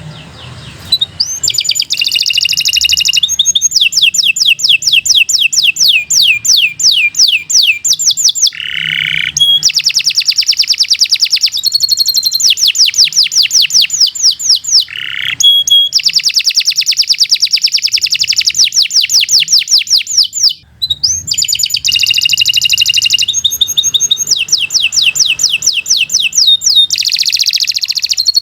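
Canary singing a long, lively song of fast trills and rapidly repeated notes, breaking off only briefly three times.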